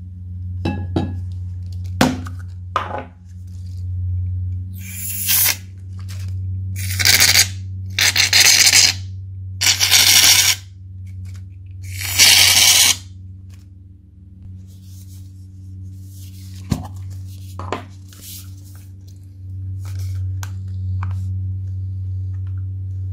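Aerosol shaving foam spraying from the can in five short hissing bursts, with sharp clicks from the can and nozzle being handled against the glass bowl. A low steady hum runs underneath.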